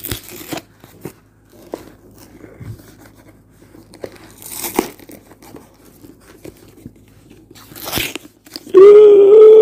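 Scattered rustling, crunching and clicking handling noises as the tablet's box and packaging are worked at, with two brief louder rustles. Near the end a person lets out a long, loud groan.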